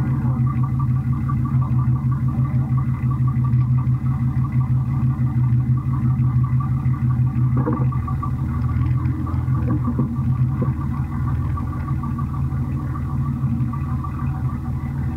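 Six-cylinder race car's engine idling steadily, heard up close from a camera on its hood.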